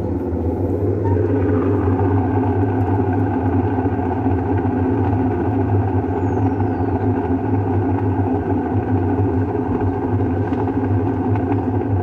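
Whirlpool Cabrio top-load washer spinning its basket on the rinse spin, a steady mechanical drone with a hum that fills out about a second in. The tub bearing is worn out, as the owner says.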